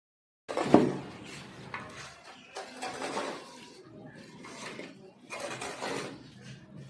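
Close-up handling noises: a sharp knock about half a second in, then irregular knocks, scrapes and rustles of packaging being handled.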